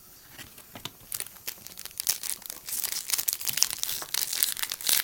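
A trading-card pack wrapper being torn open and crinkled, a dense run of irregular crackles that grows busier from about a second in.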